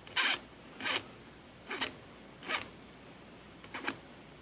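Hand file rasping across the bare copper tip of a cheap soldering iron, five separate strokes, filing it down into a one-sided chisel tip.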